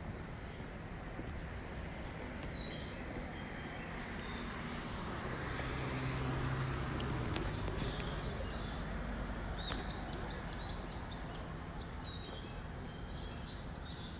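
A small songbird giving short, repeated high chirping notes, with a quick run of them about ten seconds in; the notes sound like the two-tone guide chime at JR East stations. A steady low background rumble swells midway.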